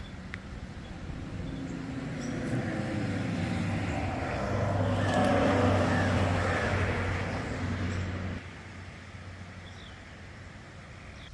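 A motor vehicle engine running, growing louder to a peak and then cutting off abruptly about eight seconds in.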